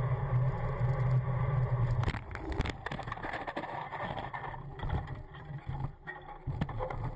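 Bicycle crash: a steady low hum of riding at speed breaks off about two seconds in as the rider goes down on the pavement after his front wheel clips the rear tyre ahead, with a burst of hard knocks and scraping, then scattered knocks and rattles as the bike and rider come to rest.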